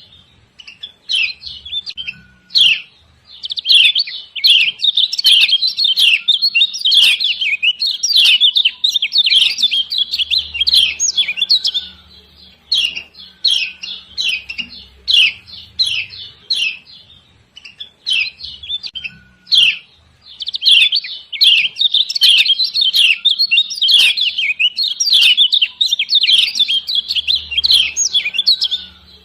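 Female yellow white-eye (kecial kuning) giving its 'ciak ciak' calls: sharp, high chirps, spaced out at first, then long runs of rapid excited chirping, twice over.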